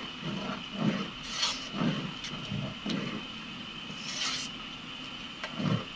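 A spoon stirring thick boiling glutinous-rice porridge in a metal pot, with irregular dull knocks and soft scrapes against the pot, over a faint steady high-pitched hum.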